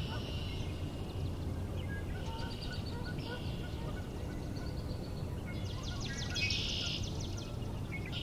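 Distant songbird singing repeated trilled phrases, a song like a northern cardinal's but a little off, with no sure identification. The phrases come about every three seconds over a steady low background rumble.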